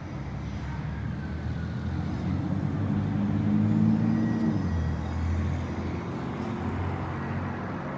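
A motor vehicle's engine running. It grows louder to about four seconds in, then its pitch drops and it eases off.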